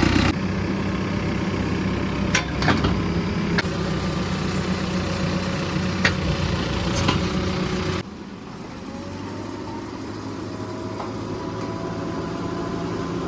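Heavy diesel engine of earthmoving machinery running steadily, with a few sharp metallic clanks. About eight seconds in, the sound drops suddenly to a quieter, steady engine hum.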